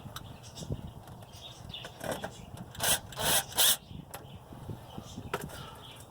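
Bolts for a differential cover being scrubbed clean by hand: light clicks and scuffs of metal parts, then three loud scrubbing strokes in quick succession about halfway through.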